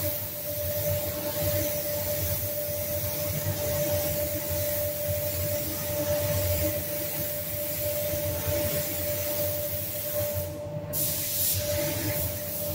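DeviLbiss gravity-feed spray gun hissing steadily as it lays base coat onto a car door, with a steady hum underneath. The hiss cuts out for a moment near the end, then resumes.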